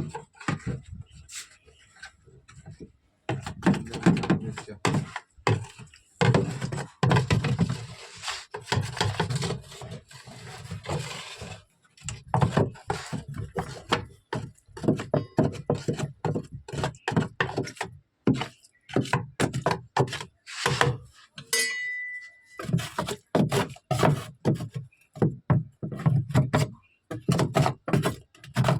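Repeated knocks, thunks and clatter of hands working on a washing machine, with a short beep about 22 seconds in.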